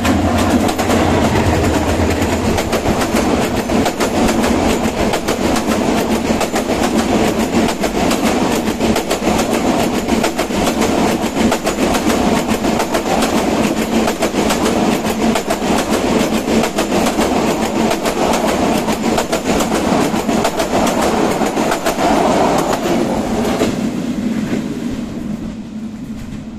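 Diesel-hauled intercity passenger train passing close by. The locomotive's engine hum is heard at first, then the coaches' wheels clatter over the rail joints in a dense, rapid rhythm, fading over the last few seconds as the train moves away.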